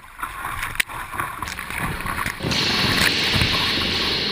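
River whitewater rushing and splashing against a kayak's bow as it runs into a rapid. The noise is moderate at first, with a sharp knock a little under a second in, and becomes a loud, steady rush about two and a half seconds in as water breaks over the bow.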